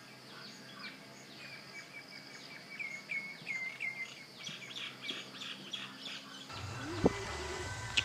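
A bird calling: a run of short repeated chirps, about three a second, growing louder midway over faint background noise. Near the end a low hum sets in and there is one sharp tap.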